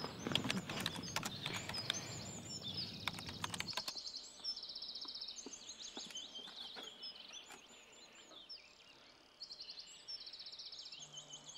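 Outdoor ambience with short, high chirping trills repeating throughout. Rustling and clicking for the first four seconds or so, then a sudden drop to a quieter background.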